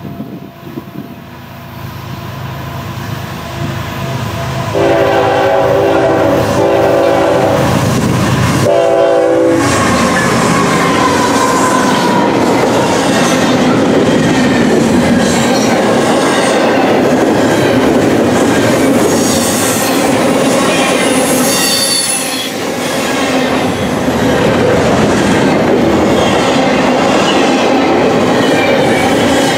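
A CN double-stack intermodal train, headed by GE diesel-electric locomotives, approaches and passes at track speed. The locomotive horn sounds in a few blasts from about five to ten seconds in, and the engine sound drops in pitch as the locomotives go by. After that the loaded container cars roll past with a steady wheel-on-rail rumble, clicking and high wheel squeal.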